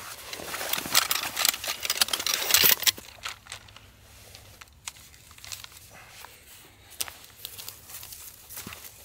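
Crinkling and rustling for about three seconds, then quieter scattered small clicks and taps.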